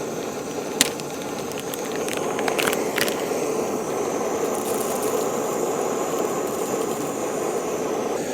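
Whole coffee beans clicking and rattling as a bag of beans is opened and poured into a manual coffee grinder, over a steady background hiss.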